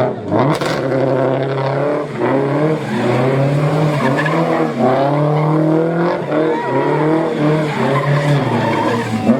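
A car engine revving hard, its pitch shifting up and down in steps, while the tyres squeal and skid against the tarmac.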